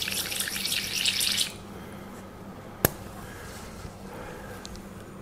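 Badger Xtreme Patriot 105 airbrush spraying with a steady hiss into a pot of paper towels, stopping about one and a half seconds in; it has a 0.3 needle fitted and is still not spraying properly. A single sharp click comes near three seconds in.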